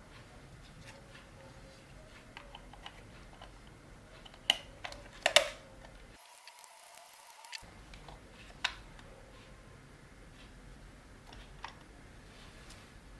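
Scattered light clicks and taps of hard objects being handled, with a short cluster of louder knocks about five seconds in and another single knock a few seconds later.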